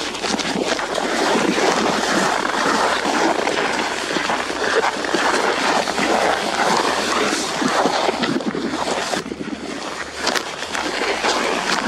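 Rushing wind noise on a body-worn camera's microphone, mixed with crackling rustle of clothing against the camera and footsteps crunching on snow as a person walks quickly.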